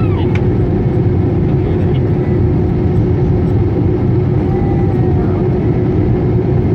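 Airbus A321-200 cabin noise heard from inside the cabin: a steady roar of engines and airflow with an even hum underneath.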